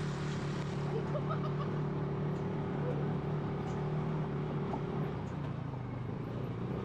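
Off-road buggy engine running at a steady speed, a constant drone, with a few faint short vocal sounds over it.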